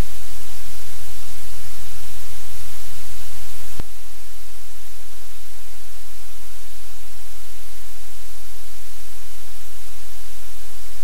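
Loud, steady hiss and electrical hum from a live-cam audio feed. There is a click about four seconds in, where the hiss drops a little in level.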